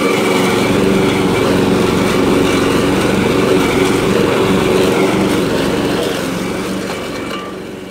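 Walk-behind petrol lawn mower engine running steadily while cutting grass. The sound fades out gradually near the end.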